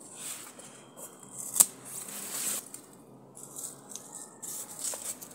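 Scissors snipping through a turmeric stem, with one sharp snip about one and a half seconds in, then the scrape and rustle of a small hand tool digging in soil and dry leaves.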